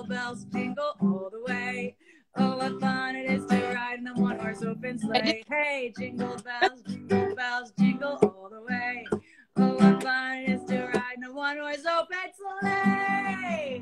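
Music: strummed acoustic guitar with a woman singing.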